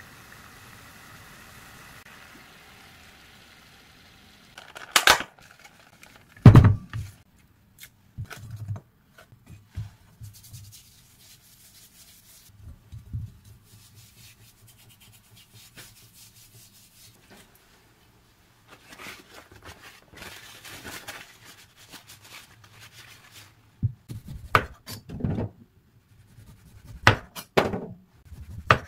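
Kitchen prep sounds: two loud sharp knocks about five and six seconds in, then soft rubbing as limes are scrubbed by hand with a white powder in a glass bowl. Near the end a kitchen knife cuts limes on a wooden cutting board, the blade knocking sharply on the board several times.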